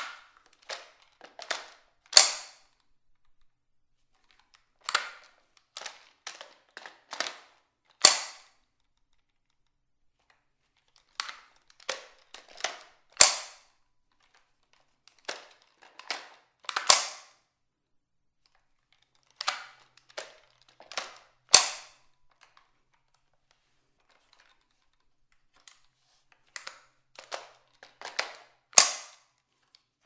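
Ruger 10/22 rifle, unloaded, being reloaded again and again: quick runs of metal and plastic clicks from the magazine and the action, each run ending in one loud, sharp snap, about every five to seven seconds. The clicks ring in a small tiled bathroom.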